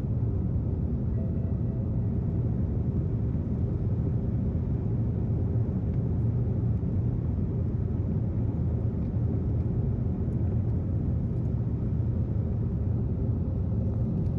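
Steady low rumble of a moving vehicle's engine and road noise, unchanging in level, cutting off abruptly at the end.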